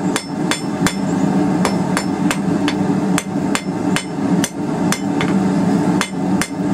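Ball-peen hammer striking a quarter-inch steel round bar on an anvil in a steady run of light blows, about two to three a second, planishing out hammer marks on a forged taper. A steady low hum runs underneath.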